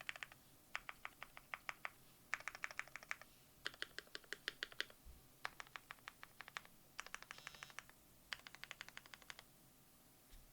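Typing on a Keychron Q1 mechanical keyboard with lubed Lavender switches and GMK Bushido keycaps, dampened with poly fill and a tape mod: quick runs of keystrokes separated by short pauses.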